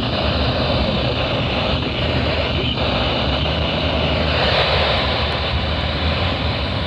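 Steady road and engine noise inside a moving car, a constant low rumble with a broad rushing hiss.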